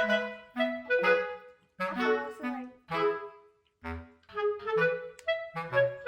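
Background music: a bouncy melody of short, quickly fading notes over a bass line, with a brief pause about three and a half seconds in.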